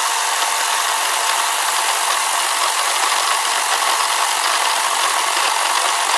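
Cordless battery-powered Worx electric chainsaw running steadily at full speed as it cuts through a dead pear tree branch overhead.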